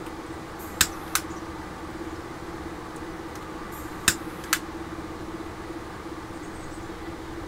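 Four sharp clicks in two quick pairs, about three seconds apart, from hands working small plastic model parts and tools, over a steady low hum.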